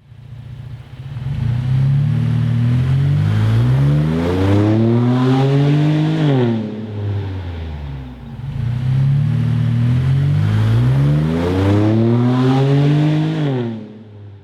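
Chevy Colorado ZR2's 3.6L V6 through a Flowmaster FlowFX cat-back exhaust with a straight-through muffler, revved twice: each time the engine speed climbs steadily for about four seconds, then drops back sharply.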